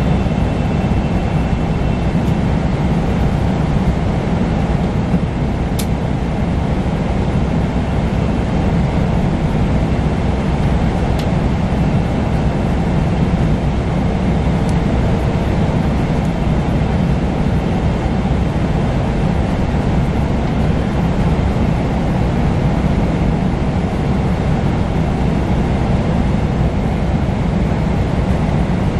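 Steady rumble of engine and airflow noise inside the cabin of a Boeing 777-300ER airliner, with two faint clicks.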